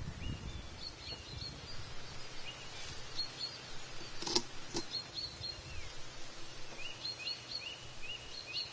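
Small birds calling in quick runs of short, high chirps and lower falling notes throughout. A little after four seconds in come two sharp metallic clinks as an aluminium pot on a steel plate is set down.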